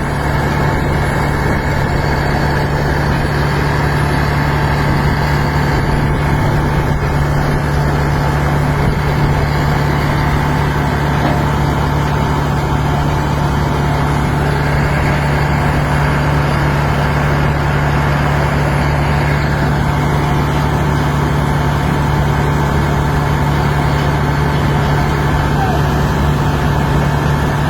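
Cummins-powered TEWATT TWT1200D-30F diesel air compressor running steadily under load, a loud constant engine drone with a deep hum that holds one pitch throughout.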